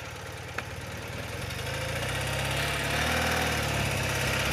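A 30-year-old BMW motorcycle's engine running low and steady, then picking up and growing louder as the bike pulls away.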